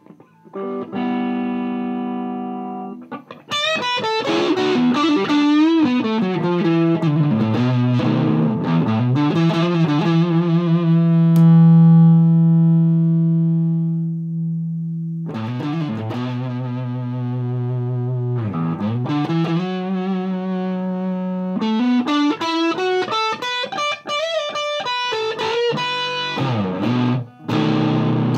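Distorted electric guitar: a Gibson Les Paul played through a Mesa Boogie Dual Rectifier tube amp set to its Spongy (reduced-voltage) power setting, into a Marshall 1960A 4x12 cabinet. A chord rings for about two seconds, then come riffs and lead lines with slides, a low note held for several seconds near the middle, and more riffing with short stops near the end.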